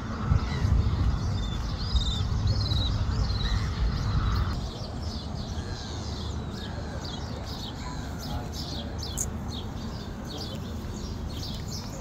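Small birds chirping over and over in short high calls, thickest in the second half. A low rumble sits under the first four and a half seconds and then stops.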